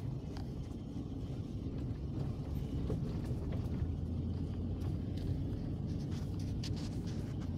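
Vehicle driving on a dirt road, heard from inside the cab: a steady engine and tyre rumble with scattered light clicks and rattles, more of them in the second half.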